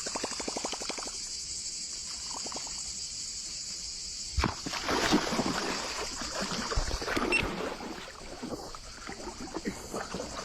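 Water splashing and sloshing, with a knock about four seconds in and a steady high hiss throughout.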